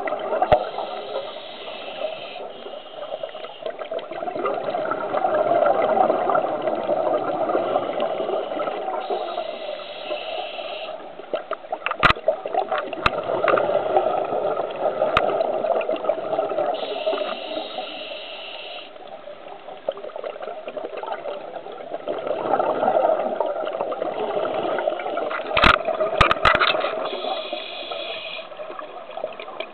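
Scuba diver breathing through a regulator underwater: a high hiss on each of four inhales, each followed by a long burbling rush of exhaled bubbles. A sharp click comes about twelve seconds in, and a quick cluster of clicks near the end.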